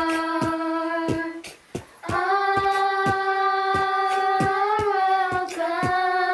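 Children's choir singing long held notes over a steady beat of sharp strokes, about two a second. There is a short break in the singing about a second and a half in, and the note changes near the end.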